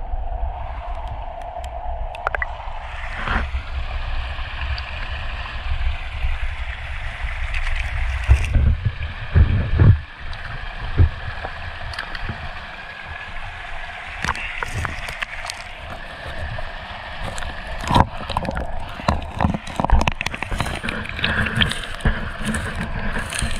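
Creek water gurgling and running steadily under a low rumble, with scattered sharp knocks and clacks throughout, more of them in the second half.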